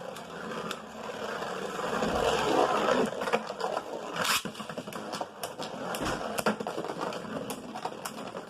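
Two Beyblade spinning tops whirring and scraping around a plastic stadium, with repeated sharp clacks as they collide, the loudest hit about four seconds in.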